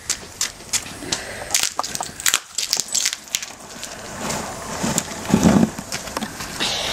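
Irregular sharp cracks and clatters of a plastic coffee maker being smashed and broken up, with a louder, lower crunch about five seconds in.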